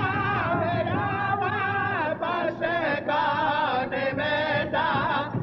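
Music of voices singing or chanting together, the held notes wavering in pitch and broken into short phrases.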